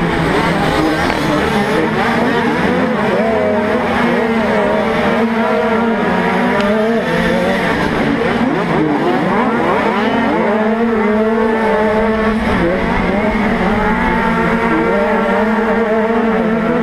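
A pack of 50cc two-stroke motocross bikes racing, heard from on board one of them. Several engines rev up and down over one another, their pitch rising and falling constantly.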